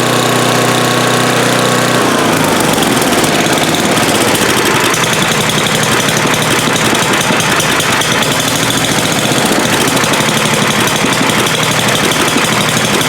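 Tecumseh Snow King small engine on a Troy-Bilt snowblower running at a steady fast idle, running again now that a stuck carburetor float pin has been freed. About two seconds in, its speed drops, and it runs on at a lower, less even note.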